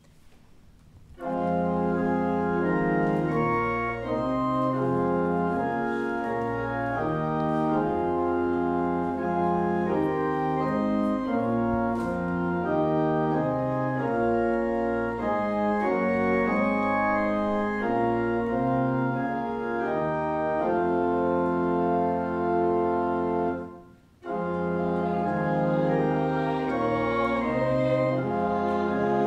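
Church organ playing a processional hymn in full sustained chords over a moving bass line. It begins about a second in, stops briefly near the end, and starts again.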